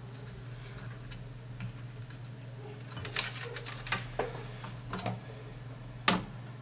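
Light clicks and knocks from handling a TV power board and its wiring while lamp wires are desoldered with a soldering iron: about five scattered clicks from about halfway, the sharpest near the end, over a steady low hum.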